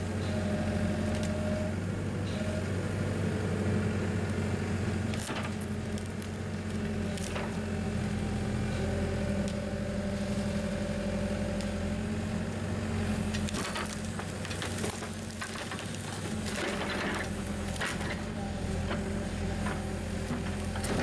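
An engine running steadily with a low hum, with scattered knocks and clanks over it, thickest in the later part.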